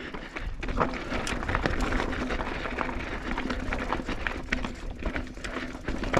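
Mountain bike rolling over a rocky trail: tyres crunching on rock and gravel under a steady rattle, with many sharp clicks and knocks as the bike jolts over the rocks.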